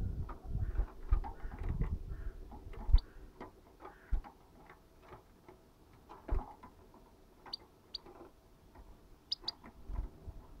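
Small birds, goldfinches, at a sunflower-seed feeder: an irregular run of ticks and knocks from pecking and shelling seeds, busiest in the first few seconds, with a few brief high chirps, paired near the end.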